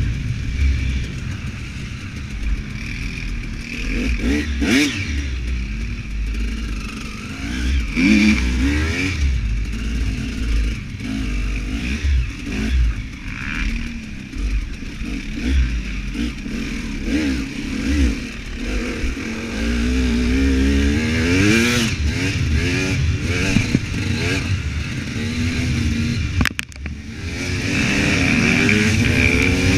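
Husaberg 300 two-stroke enduro motorcycle engine heard from on the bike, revving up and dropping back again and again as the rider works the throttle and gears over rough dirt, with scattered knocks and clatter from the bumps.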